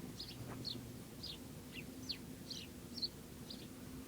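Small birds chirping: a string of short, high chirps, each falling in pitch, about two a second, over a faint steady low hum.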